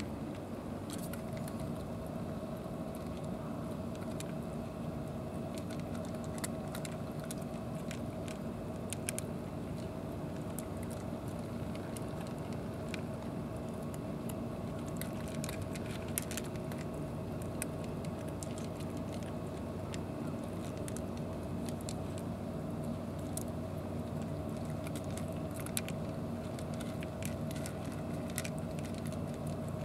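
Several cats crunching dry kibble from plastic trays: irregular sharp crunches and clicks, over a steady low droning hum.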